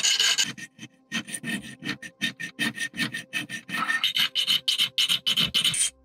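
A small hand file rasping across a brass buckle held in a hand vise, in quick repeated strokes, about three a second.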